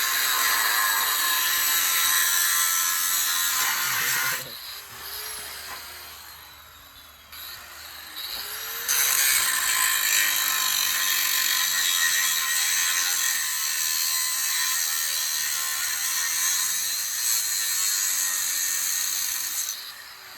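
A power tool running in two long stretches, with a high, hissing whir. It stops about four seconds in and starts again about nine seconds in.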